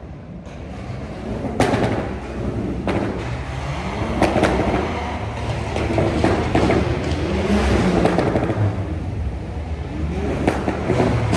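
Car engine revving hard, with sharp exhaust bangs cracking out every second or two over the rising and falling engine note.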